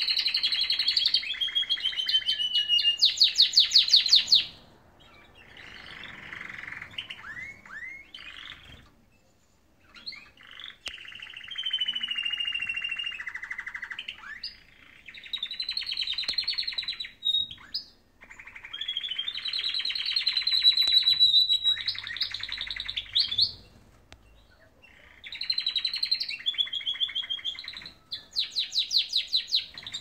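Canaries singing long, continuous songs of rapid trills, rolling repeated notes and quick glides, phrase after phrase with brief pauses between them. The fastest, loudest trills come about three seconds in and again near the end.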